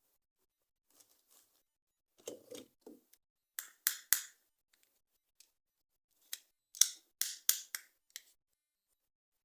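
Toy packaging being handled during unboxing: a few soft rustles, then sharp snip-like clicks in two clusters, about three around four seconds in and about five more around seven seconds in.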